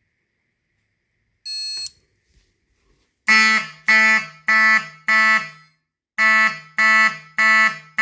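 Fire alarm horn-strobe sounding the code 4-4 pattern: four loud, short horn blasts, a pause, then the next group of four begins. A short high beep comes about a second and a half in, before the blasts start.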